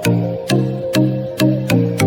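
Background music with a steady beat: sharp percussive hits about three times a second over a repeating bass-and-synth melody.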